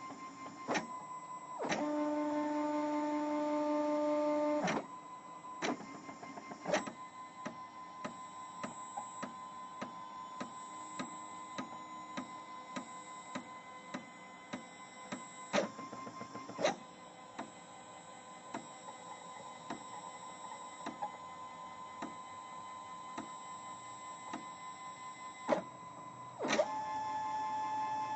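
Stepper motors of a CNC drawing machine running: a steady electric whine that jumps to a new pitch every few seconds as the moves change, loudest for a few seconds near the start, with frequent short clicks.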